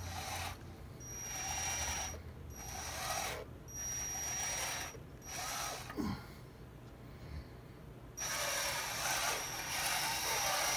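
Small electric gear motors of a radio-controlled model Case tractor whirring in short stop-start spurts with a thin high whine as it drives and turns, then running for a longer stretch near the end. A single click about six seconds in.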